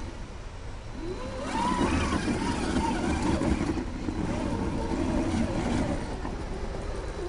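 Electric drive motor and gearbox of an Absima CR3.4 Sherpa RC rock crawler whining under load as it climbs a steep rock. The whine comes up about a second in and wavers up and down in pitch with the throttle, easing off near the end.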